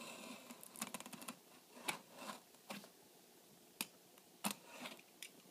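Cardboard retail box being handled while its sealing tape is cut open with a blade: a scattered run of small clicks and short scrapes.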